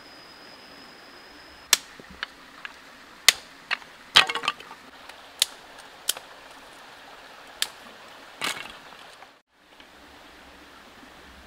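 Dry wooden sticks cracking and clacking against each other and the stones: a dozen or so sharp cracks in irregular bursts, some in quick clusters. Underneath runs the steady hiss of a flowing stream.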